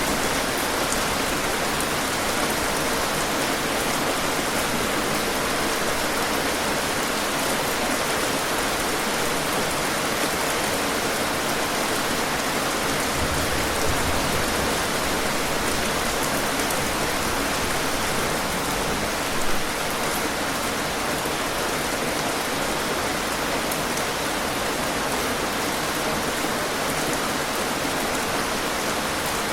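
Steady heavy rain falling: a dense, even hiss of drops on surfaces, with a couple of slightly louder drops or splashes about 14 and 19 seconds in.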